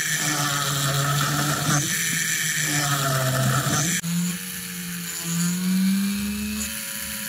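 Jeweller's motorised rotary handpiece spinning a small burr against a silver ring: a steady motor whine that shifts in pitch as the speed changes. About four seconds in it drops in level, then rises slowly in pitch.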